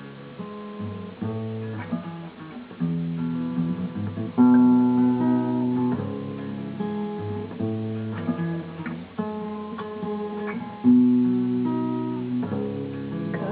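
Acoustic guitar playing a slow chord introduction to a song, chords changing every second or so, with two louder strummed chords about four and eleven seconds in.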